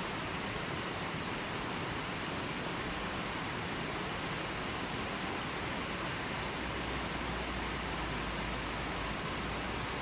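River water rushing steadily over and around boulders, a constant even hiss with no breaks.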